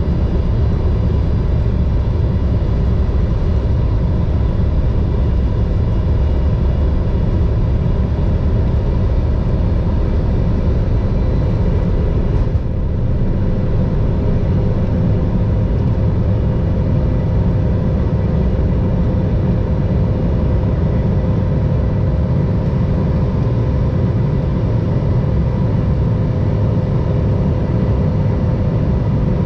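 Cabin noise of an Embraer ERJ-170 airliner on the ground with its GE CF34-8E turbofans at idle: a steady low rumble under a steady whine. The level dips once, briefly, about twelve and a half seconds in.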